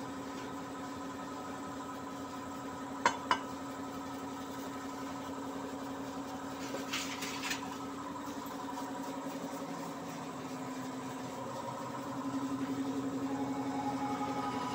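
Steady mechanical hum, like an engine running in the workshop, with two sharp metallic clicks about three seconds in and a brief scrape near seven seconds as parts are handled.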